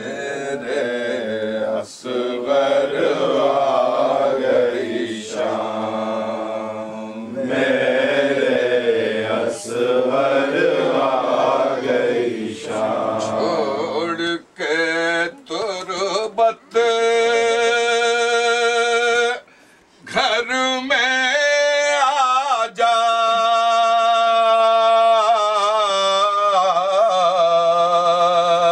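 Men's voices chanting a Muharram nauha (lament) together, then, about halfway through, a single male voice sings it alone with long held, wavering notes.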